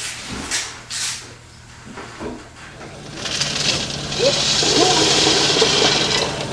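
A few short knocks, then, about three seconds in, a loud steady hiss lasting about three seconds over the low steady hum of a small idling engine.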